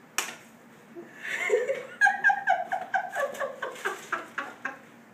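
A person giggling in a quick run of short pitched bursts for about four seconds, after a sharp click near the start.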